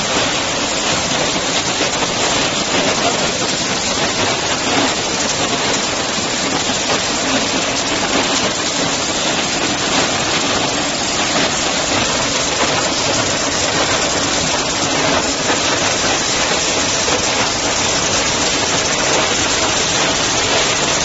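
KM 60 cashew colour sorting machine running: a loud, steady hiss with no pauses or changes.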